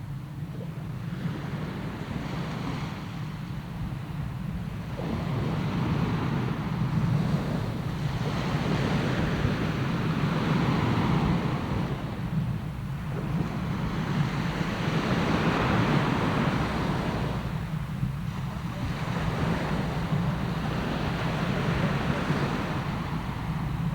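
Sea surf breaking on the shore, heard from about 50 m away: a continuous wash of waves that swells and eases every few seconds over a steady low rumble.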